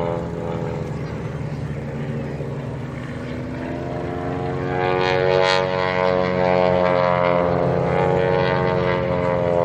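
Several propeller-driven aerobatic planes flying overhead in formation, their engines droning together. They grow louder from about five seconds in, and the engine note shifts in pitch as they pass.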